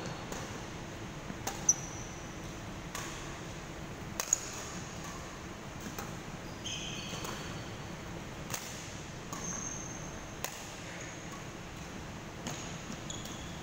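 Badminton rally: rackets striking the shuttlecock in sharp smacks every second or few, the two loudest about a second and a half and four seconds in, with short high squeaks of shoes on the wooden court floor.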